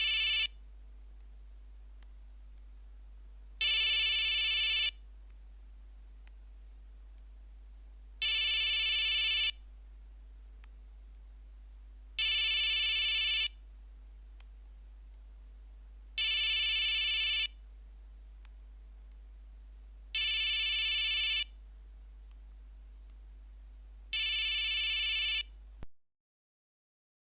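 Nokia 1100 monophonic ring or alert tone: one steady electronic note, about a second and a quarter long, repeated every four seconds, seven times in all, stopping near the end.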